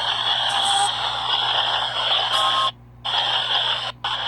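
PXB 07 spirit box sweeping through radio frequencies: a steady hiss of radio static that cuts out abruptly for a moment about two and three-quarter seconds in and again briefly near the end.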